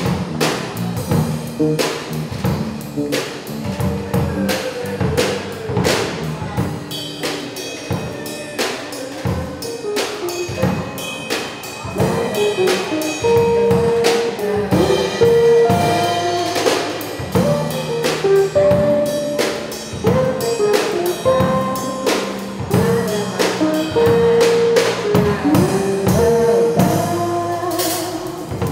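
Live band playing a song: a woman singing with keyboard, electric bass and acoustic guitar, over a steady percussive beat.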